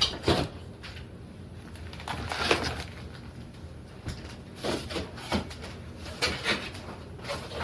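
Scattered knocks, clicks and rustles of a food container being handled and put away in a refrigerator.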